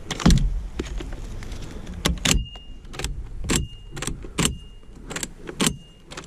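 Footsteps crunching through frozen snow, about one step a second, each with a low thump. Several steps are followed by a short high ring.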